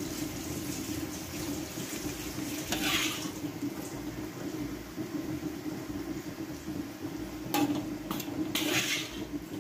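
Metal ladle scooping hot soy-sauce broth from a wok and pouring it over a plated fish. The liquid splashes about three seconds in and again near the end, with a couple of sharp clinks of the ladle against the wok shortly before the last pour, over a steady low hum.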